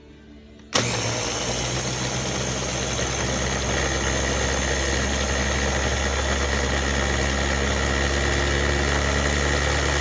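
Ninja food chopper's motor pod switching on about a second in and running steadily at full speed, blending parsley, garlic, vinegar and oil into a liquid dressing: a loud, even motor whir with a low hum and a steady high whine.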